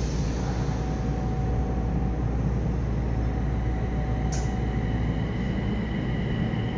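Yokohama Municipal Subway 4000 series train running, heard from inside the car: a steady low rumble of wheels on rail. Faint steady whines come in about halfway, and there is a single sharp click about four seconds in.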